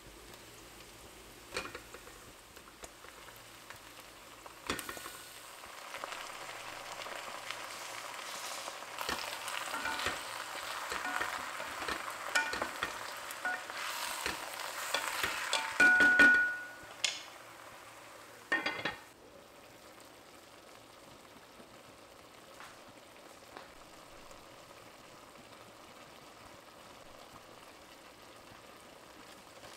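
Chicken pieces, potatoes and onions sizzling as they fry in a pot and are stirred with a wooden spoon, with scattered knocks of the spoon against the pot. The sizzling builds to a short loud clatter about sixteen seconds in, then dies away.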